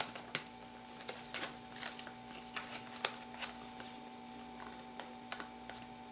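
Scattered light clicks and crinkles of plastic bait packaging being handled, over a faint steady hum.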